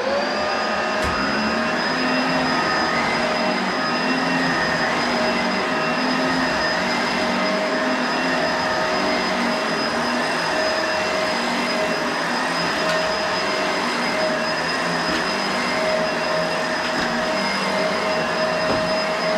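Bissell SurfaceSense Allergen Lift-Off Pet upright vacuum cleaner switched on: its motor spins up quickly to a steady high whine and runs on.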